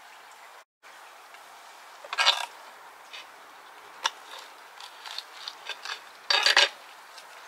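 Kitchen knife slicing green chili peppers on a clear cutting board: scattered sharp ticks of the blade against the board, with two louder short scrapes about two seconds in and near the end.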